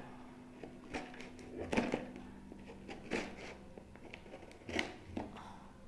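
Cardboard parcel box and its packing tape handled with scissors: a handful of short rustles and scrapes, spaced irregularly about a second apart.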